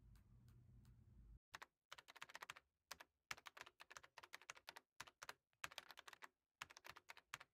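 Typing on a white Apple Magic Keyboard for iPad: quick runs of light key clicks with short pauses between them, starting about a second and a half in after a brief low hum.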